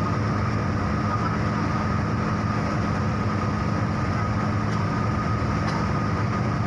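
A bus's engine running steadily with road noise inside the driver's cab while under way, with a steady high whine above the low rumble.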